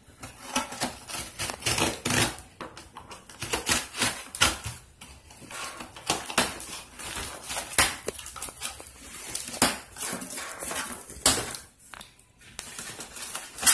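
A cardboard shipping box being cut open and handled: a knife slicing through packing tape, cardboard scraping and flaps rustling. The noises come as an irregular string of scrapes and sharp knocks.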